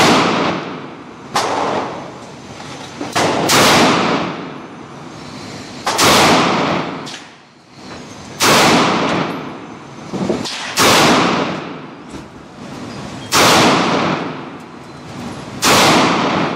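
Rock Island Armory 22 TCM 1911 pistol firing about seven loud single shots, spaced roughly two and a half seconds apart. Each shot echoes in the indoor range. A few fainter bangs fall between them.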